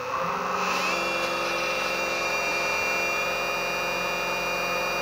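Electric eFin fin-mounted thruster motor spinning its propeller up, its pitch rising during the first second, then running at a steady whir.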